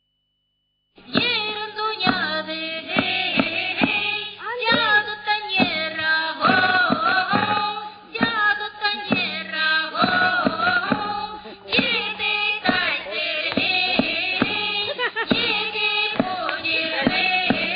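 Women singing a folk song in a group over a steady low drone and regular beats, starting about a second in.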